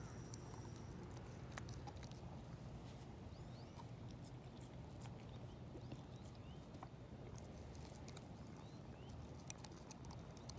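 Dog gnawing on a raw marrow bone: faint, irregular clicks and cracks of teeth on bone over a low steady background hum.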